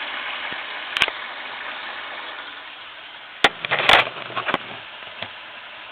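Hot water running from a tap into a sink, a steady hiss that eases off about three seconds in, followed by a few sharp knocks and clatters.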